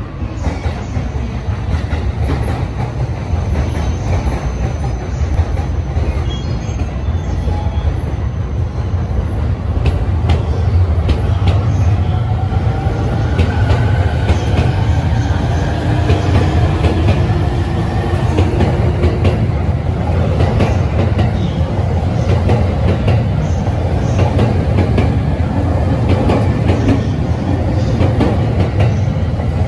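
JR East E231-series electric commuter train pulling out of a platform: a steady low rumble, with the traction motors' whine rising in pitch about halfway through as it gathers speed. Wheels click over rail joints as the cars pass.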